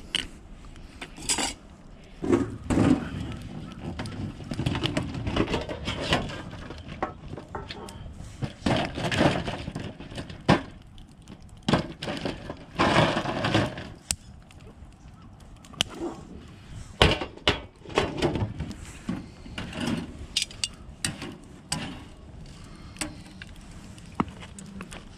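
A run of irregular knocks, scrapes and clatters from hands at work at a camp fire: cutlery on a metal plate, and pine cones handled in a steel tin.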